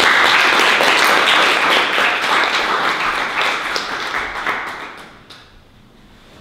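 Audience applauding after a talk: many hands clapping together, thinning and dying away about five seconds in.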